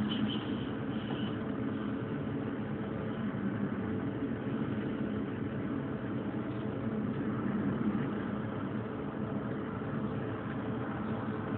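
Steady running noise of a Forchbahn electric railcar heard from its front cab: wheels rolling on the track with a low drone, with a faint high whine that fades in the first second.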